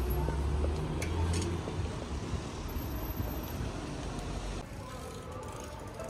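Street traffic: a motor vehicle passing close by. Its low engine and tyre rumble is loudest in the first two seconds and dies away about four and a half seconds in.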